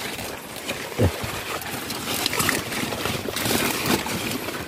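Water hyacinth leaves and stems rustling and scraping as they are pushed aside by hand and brush the microphone, in an irregular run of crackles, with some water trickling.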